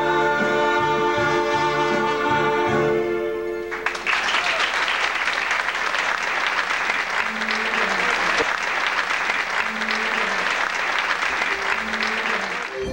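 Trumpet and keyboard holding the final chord of a song; it cuts off suddenly about four seconds in. Then an audience applauds.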